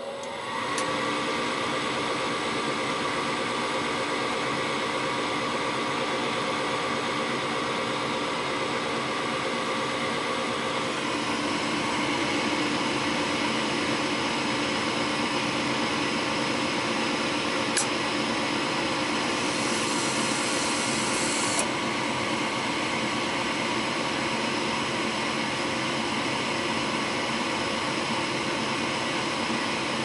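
Gas furnace draft inducer motor spinning up to speed in the first second, then running with a steady hum and whine; a single sharp click about eighteen seconds in. The burners do not light, because the igniter is bad, an open circuit.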